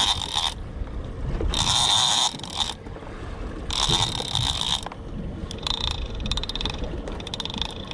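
Big-game lever-drag fishing reel working against a hooked fish, possibly a shark: three separate bursts of reel noise about a second each, then a run of rapid clicking near the end.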